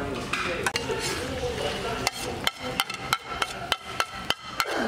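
Metal spatula stirring food on a steel griddle pan, then striking the pan in a quick run of sharp, ringing metallic clinks, about three or four a second, through the second half.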